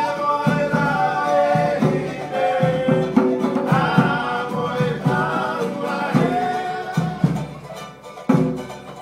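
A group of men singing together in harmony over a hand drum beating roughly once a second.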